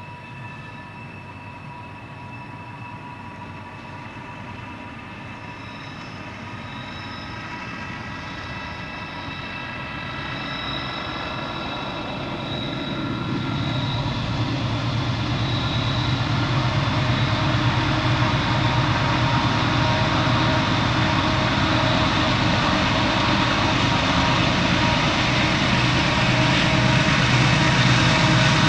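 An approaching train, its diesel locomotives' engine drone growing steadily louder, with thin high steady tones over it in the first half.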